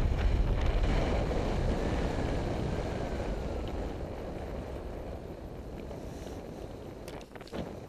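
Wind rushing over a helmet-mounted camera's microphone during a paraglider flight, fading steadily as the glider sinks toward the snow, with a couple of short knocks near the end.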